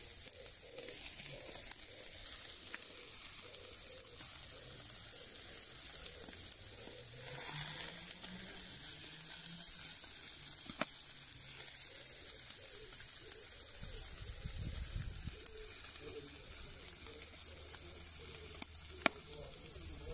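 Meat sizzling over hot charcoal on a grill: a steady hiss of fat frying, with a few sharp pops.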